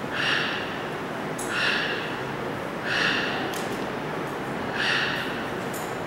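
Toco toucan giving four short, rasping croaks, one about every second and a half.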